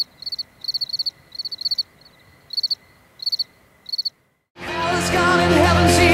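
Crickets chirping in short high groups of pulses, roughly one or two groups a second. After a brief silence about four seconds in, loud live band music with electric guitar and singing begins.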